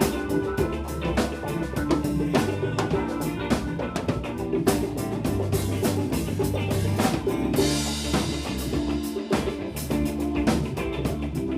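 Live band playing an instrumental passage: a drum kit keeps a steady beat with snare and kick under bass and held chords, with a cymbal crash ringing out about two thirds of the way through.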